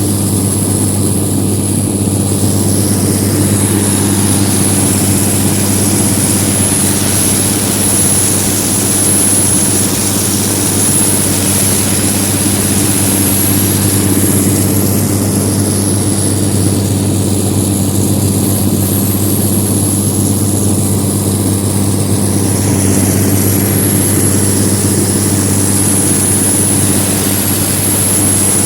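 Heavy harvest machinery running steadily: a deep, even engine hum with a thin high-pitched whine above it.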